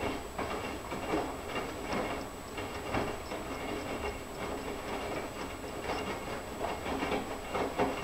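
Front-loading washing machine tumbling a wash: wet laundry sloshing and splashing through soapy water as the drum turns, in uneven swishes about twice a second.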